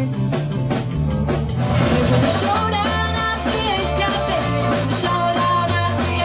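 Live skiffle-style rock 'n' roll band playing, guitar and drums to the fore. The band comes in fuller and singing starts about one and a half seconds in.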